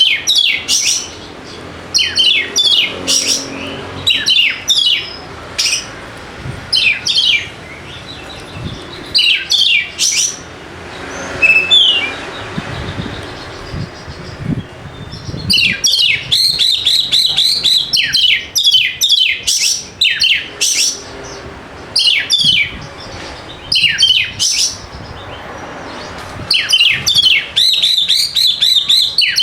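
Oriental magpie-robin (kacer) singing a loud, varied song of sharp, falling whistled notes and rapid chattering runs, in bursts with short pauses and a lull near the middle. It is the full song of a bird in top singing form, the kind played to coax a silent kacer into song.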